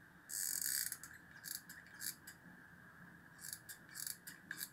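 Hot glue gun being squeezed, its trigger and stick-feed mechanism making short ratcheting clicks: a longer scratchy one about half a second in, then several brief clicks spread through the rest.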